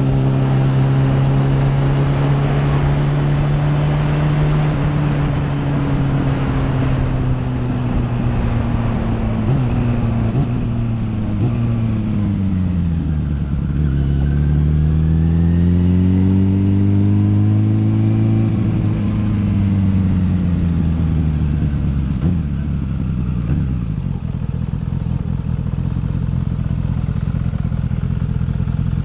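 Motorcycle engine under way at a steady speed, then dropping in pitch as it slows about twelve seconds in, rising again as it pulls away, and falling once more to settle at a low idle for the last few seconds.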